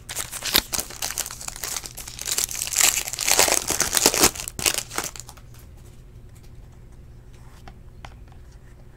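Gold foil trading-card pack wrapper being torn open and crumpled: a dense crinkling, loudest about three to four seconds in. It stops about five seconds in, leaving only faint clicks of the cards being handled.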